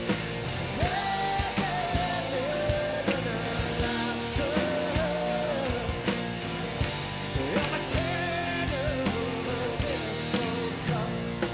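Live rock band playing: drum kit keeping a steady beat under bass, acoustic and electric guitars, with a melody line that slides and wavers over the top.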